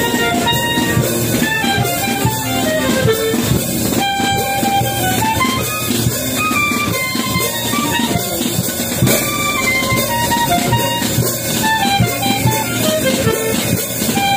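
Music: a melody of short stepped notes over a steady beat.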